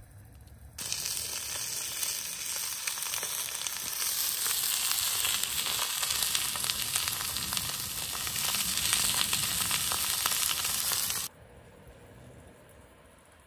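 Food sizzling and crackling in a hot pan, a dense spitting hiss that starts abruptly about a second in and cuts off suddenly near the end.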